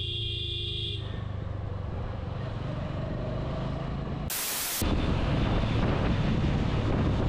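Motorcycle engine running steadily under the rider with road and wind noise, heard from a helmet camera. About four seconds in there is a brief hiss and the sound jumps to a slightly louder ride.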